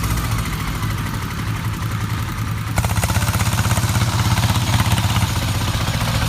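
Farm vehicle's engine running with a rapid, steady low beat; about three seconds in it gets louder as the engine works harder.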